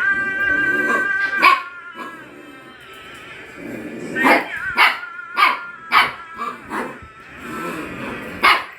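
A street dog barking: about six single sharp barks, the first after a second and a half, then four in quick succession roughly half a second apart, and a last one near the end.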